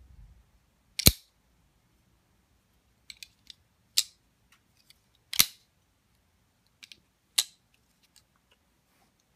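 Folding pocket knife flicked open four times, its blade snapping sharply into lock each time, with fainter clicks between as it is unlocked and closed.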